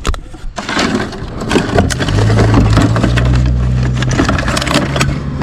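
A vehicle engine running close by with a steady low hum that grows louder about two seconds in, over continual rattling and clattering.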